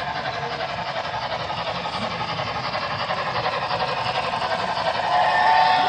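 Model train locomotive's onboard sound running: a steady hissing engine sound with a fast, even rhythm that grows louder. About five seconds in, a horn-like chord of steady tones starts.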